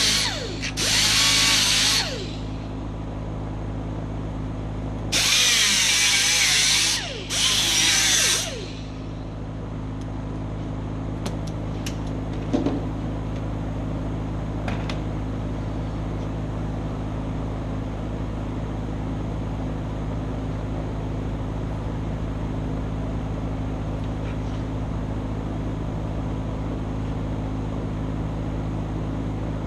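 Electric grinder running, its wheel grinding metal on a chain in four bursts of one to two seconds during the first eight seconds or so. After that the motor keeps running on its own with a steady hum, apart from a few faint clicks.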